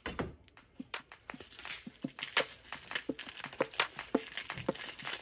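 Plastic film wrapper of a kamaboko fish cake crinkling and tearing as it is peeled open by hand, in quick irregular crackles, after a single knock at the start.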